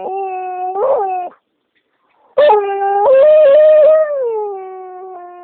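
Dog howling in two long drawn-out calls, the cranky "singing" of a dog that wants to be left alone. The first howl ends about a second in; after a short pause a louder one rises, wavers, then falls slowly in pitch and fades.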